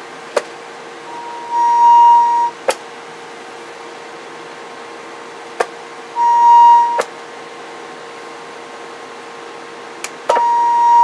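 Bench test of a CB radio keyed with a steady test tone, three times over. Each time a sharp click is followed by a single steady high tone that swells in and holds for about a second, then another click. The third keying near the end keeps the tone on. A faint steady hum from the bench equipment runs underneath.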